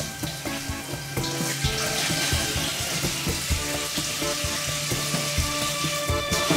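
Kitchen tap running steadily into the sink while dishes and a plastic container are rinsed under it, with background music playing.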